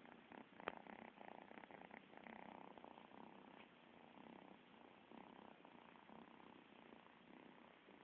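Kittens purring faintly, close to the microphone, with one sharp click about a second in.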